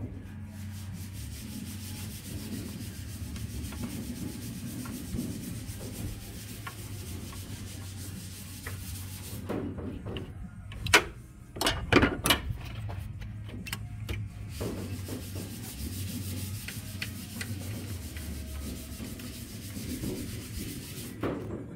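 Rubber upper radiator hose being pried and twisted off the radiator's metal outlet neck with a hose pick. It makes rubbing and scraping sounds, with a cluster of sharp clicks and knocks about halfway through as the hose works loose.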